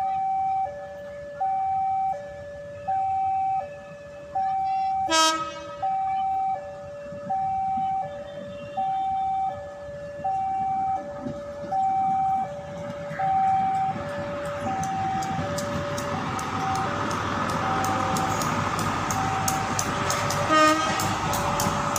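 Level-crossing warning alarm sounding a steady two-tone ding-dong, alternating a lower and a higher tone, while a multiple-unit train approaches and passes. A short horn toot comes about five seconds in and another near the end. In the second half the train's running noise swells and its wheels click rapidly over the rail joints.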